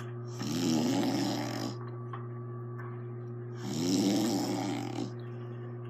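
A woman snoring: two long, rough snores about three seconds apart, each lasting a second or more. A steady low hum runs underneath.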